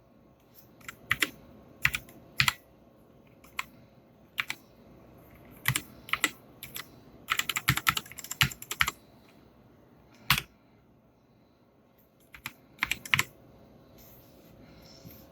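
Keystrokes on a Keychron K6 mechanical keyboard with brown optical switches and PBT double-shot keycaps: scattered single presses and pairs, a quicker flurry of typing about halfway through, a pause, then a few more presses near the end.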